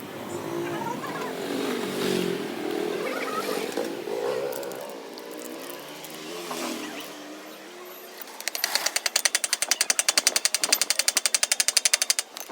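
A fast, even run of sharp mechanical clicks, about a dozen a second, starting about two-thirds of the way in and stopping just before the end. Before it comes a quieter, wavering sound.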